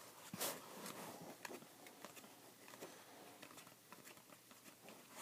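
Faint rustling and light clicks of glossy Panini Prizm football cards being handled and slid one behind another through the hands, with a louder rustle about half a second in.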